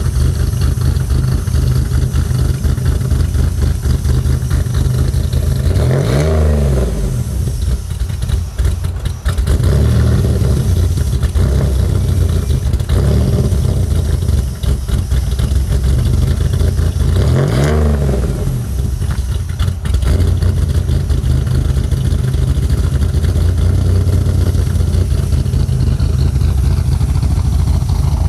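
Supercharged 3800 V6 of a 1997 Pontiac Grand Prix GTP with an XP camshaft, idling with a lope at the tailpipes. It is revved twice, the pitch rising and falling back about six seconds in and again about eleven seconds later.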